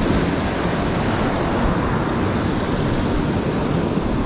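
Ocean surf washing onto the beach: a steady, even rush of noise.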